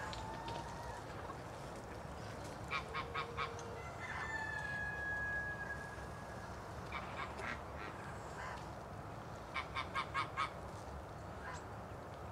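Domestic geese honking in quick runs of three to five calls, with one long, higher call about four seconds in.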